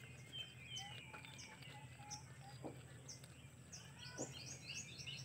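Small birds chirping faintly, short high chirps scattered at first and then coming in a quick run near the end.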